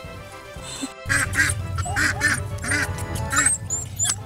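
Ducks quacking repeatedly, starting about a second in, over background music.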